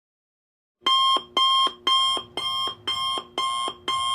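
A repeating electronic alarm sounding about twice a second, starting about a second in; the first three pulses are the loudest.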